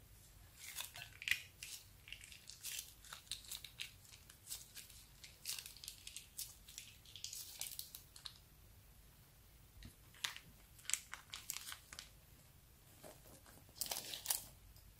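Thin plastic bag crinkling and crackling in irregular bursts as it is squeezed and handled, with a pause of a couple of seconds in the middle.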